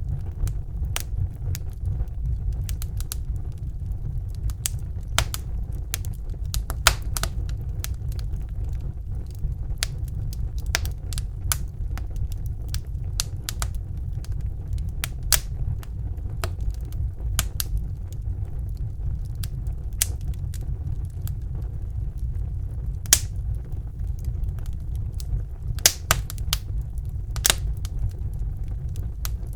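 Wood fire burning in a fireplace: a steady low roar of flames under irregular crackles and pops, with a few louder snaps near the end.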